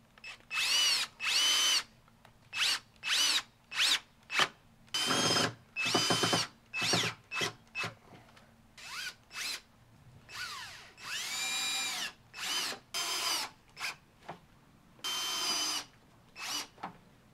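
Cordless drill driving screws into a boat trailer bunk board: about eighteen short trigger pulls, each a whine that rises in pitch as the motor spins up and drops as it stops.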